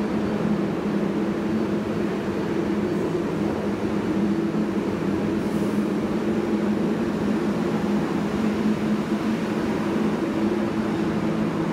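New York City subway 7 express train standing at the platform with its doors open, giving off a steady hum with two held low tones.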